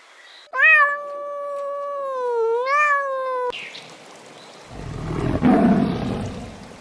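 Two animal calls: a long, high-pitched call with wavering pitch lasting about three seconds that cuts off abruptly, then, about a second later, a rough, low, noisy call lasting about two seconds.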